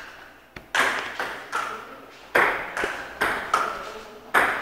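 Table tennis ball being hit back and forth in a rally: sharp clicks of ball on paddle and table, about ten in a few seconds at an uneven pace, each with a short echoing tail in the hall.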